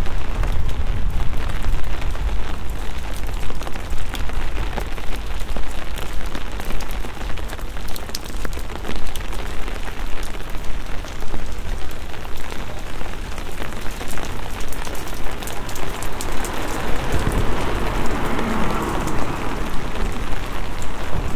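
Rain falling on a wet town street: a steady hiss with scattered sharp drop ticks over a low rumble.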